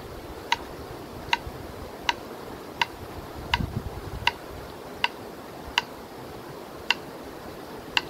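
Kitchen knife slicing through a raw carrot and striking a wooden cutting board: a sharp click with each cut, about one every three-quarters of a second. There is a brief low bump about halfway through.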